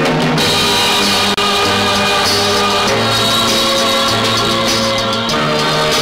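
Loud film soundtrack music with long held notes, the low notes changing every second or so.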